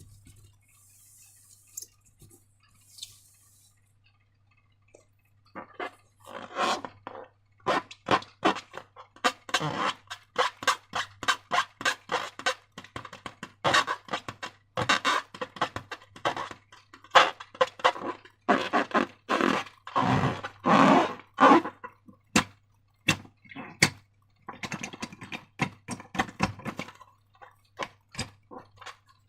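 Slime being handled: after a few quiet seconds with faint soft hisses, a dense, irregular run of wet squelches and sticky pops starts about five seconds in.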